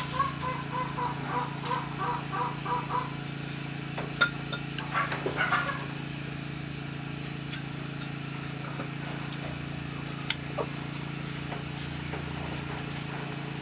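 A person slurping noodles and eating from a ceramic bowl, with sharp clinks of a fork or spoon against the bowl, over a steady low hum. In the first three seconds a short chirping call repeats rapidly, about three times a second.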